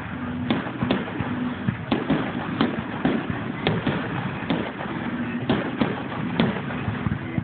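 Fireworks finale: aerial shells bursting in quick, irregular succession, about ten sharp bangs, over a continuous crackle of smaller bursts.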